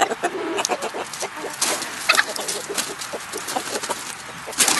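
Chickens, hens with a rooster among them, clucking, with a brief higher call about two seconds in and a louder burst of rustling near the end.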